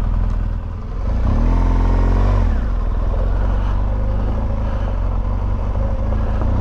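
Adventure motorcycle engine under way on a gravel lane. The revs dip briefly, rise about a second in, drop off, then run steadily.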